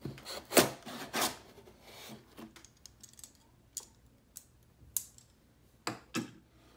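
A knife slicing through the thumb-tab seals on a cardboard LEGO box: two sharp scraping cuts in the first second or so, then light rustling. After that come a few scattered clicks and knocks.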